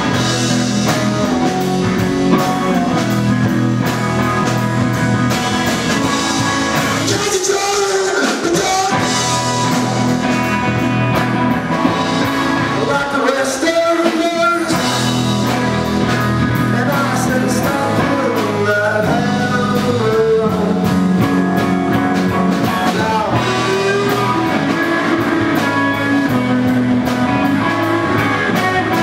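Rock band playing live on electric guitars, bass and drum kit, with the bass dropping out briefly twice, about seven and thirteen seconds in.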